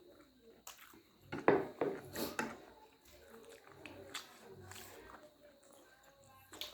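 People eating chowmein with chopsticks: a cluster of sharp taps and clatters between about one and two and a half seconds in, then quieter chewing with faint murmured voices.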